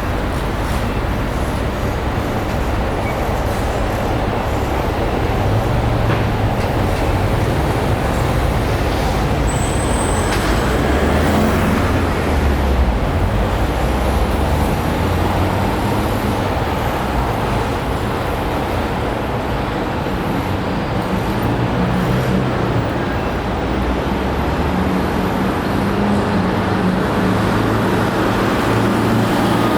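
City street traffic noise: a steady wash of passing vehicles with engines rising and falling, and a brief high squeal about ten seconds in.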